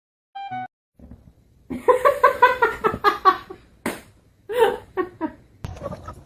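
A voice in a quick run of short pitched pulses, about six a second, like a laugh, followed by a few more scattered pulses; a brief pitched blip comes just before.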